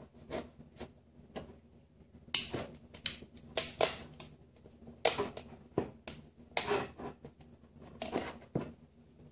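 Ratchet strap being cranked tight around bent kerfed birch plywood, its ratchet giving short clicking clatters in irregular bursts, some of them loud.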